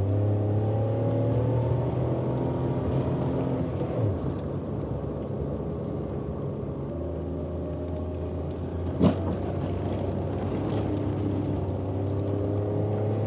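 Maruti Suzuki Alto 800's small three-cylinder petrol engine held at high revs in a low gear, straining up a steep loose gravel climb to keep momentum so the car doesn't stall on the incline. The revs sag about four seconds in and pick up again about three seconds later, and a single sharp knock comes about nine seconds in.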